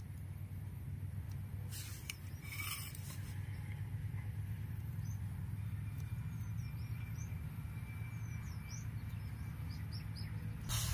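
Quiet steady low hum with faint bird chirps in the background, and a few soft clicks about two to three seconds in from scissors snipping soft rice-flour dough.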